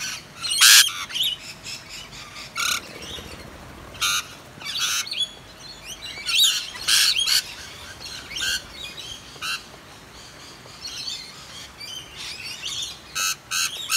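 Rainbow lorikeets calling: many short, high-pitched screeches, loudest about a second in, around seven seconds and near the end, over a steady hiss of rain.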